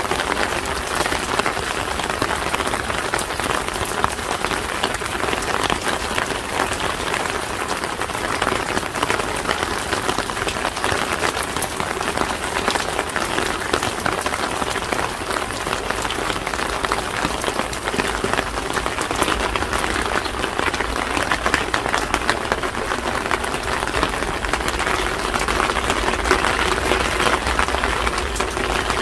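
Steady rain falling on street surfaces, a dense continuous patter of drops that grows slightly louder near the end.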